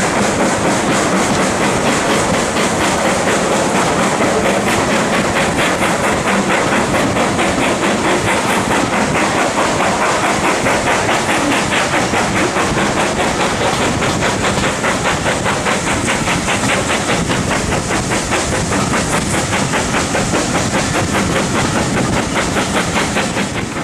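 Steam-hauled heritage train running, heard from an open carriage window: a steady loud rush of wheel, rail and steam noise with a fast, even pulse.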